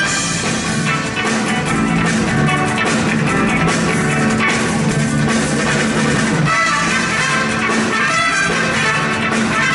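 A jazz big band playing live: saxophones and brass over piano, guitar, bass and drum kit, with the music running on without a break.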